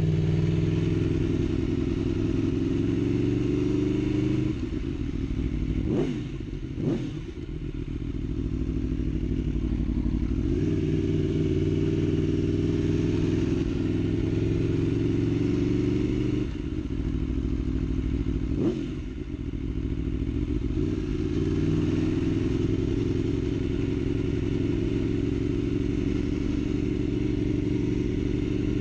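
Aprilia Tuono V4 motorcycle's 65-degree V4 engine running at low speed, its pitch climbing as it pulls and falling away sharply a few times. There are a few short sharp sounds around the pitch drops.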